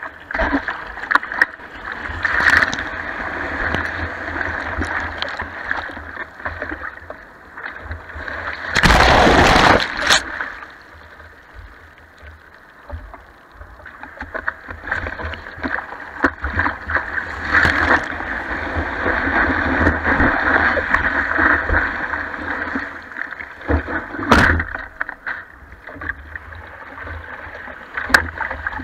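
Seawater sloshing and splashing against a surfboard and its board-mounted camera as a surfer paddles through whitewater. A loud rush of water washes over the camera about nine seconds in, and a sharp splash comes later.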